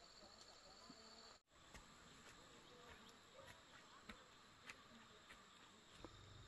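Near silence: faint outdoor background with a faint insect trill, broken by a brief dropout about a second and a half in.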